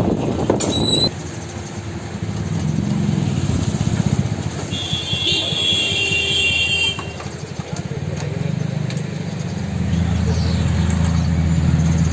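A motor vehicle engine running steadily, growing louder about eight seconds in, with a brief high tone about halfway through.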